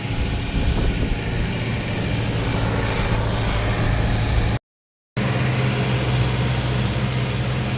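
Farm tractor engine running loudly and steadily. About four and a half seconds in the sound drops out completely for half a second, then the engine comes back with a steadier low hum.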